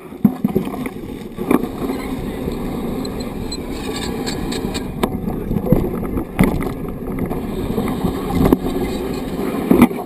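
Mountain bike rolling over a rough dirt and gravel trail, heard through a camera mounted on the bike: a steady rumble of knobby tyres with several sharp knocks and rattles as the bike jolts over bumps.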